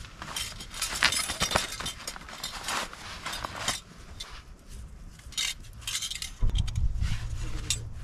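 Quick light clinks and rattles of small hard objects being handled, such as camp cookware or utensils, dense for the first few seconds and scattered after. A low rumble joins about six and a half seconds in.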